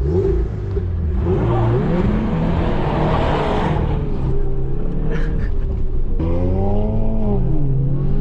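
A car engine revving hard for a burnout in snow, with wheels spinning. The pitch rises and falls several times, and there is a hiss about a second in that lasts a few seconds.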